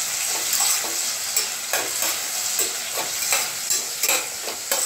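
Sliced onions sizzling in hot coconut oil and ghee in a stainless steel pressure cooker, being sautéed until soft. A steel slotted ladle scrapes and stirs through them in short strokes, about two a second.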